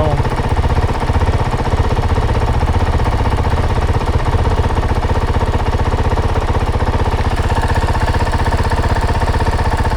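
Vehicle engine idling with a fast, even low pulse while stopped.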